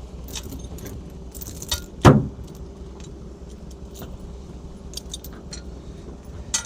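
Steel chain links clinking and rattling as the chain is wrapped around for a lift, with scattered clicks throughout and one louder clank about two seconds in.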